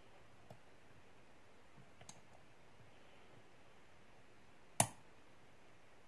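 Small metallic clicks from the pin-tumbler core of a Master Lock 410 LOTO padlock being single-pin picked with a hook pick under light tension: two faint ticks, then one sharp click near the end as a pin sets.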